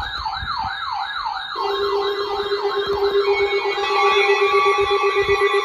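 Electronic emergency-alert siren tone: a fast falling sweep repeating about three times a second. About a second and a half in, a steady lower tone and further steady tones join it. It is the alert signal that heralds a new severe weather warning.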